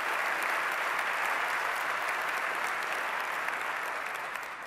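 Audience applauding steadily, a dense even clapping that begins to taper off near the end.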